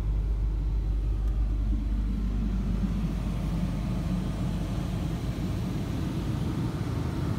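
Pickup truck's diesel engine idling, heard from inside the cab as a steady low rumble.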